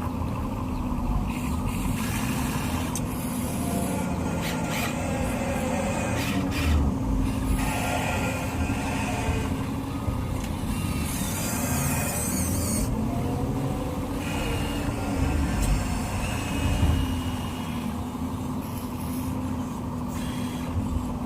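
Remote-control construction truck running: a steady mechanical hum with rumbling underneath.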